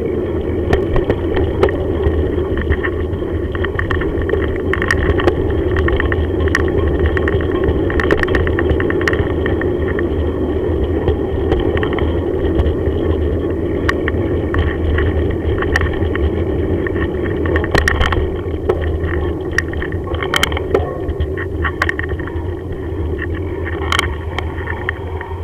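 Bicycle rolling along a rough, patched tarmac lane, heard through a camera mounted on the bike: a steady rumble of tyre and road noise with frequent short rattles and clicks as it goes over bumps.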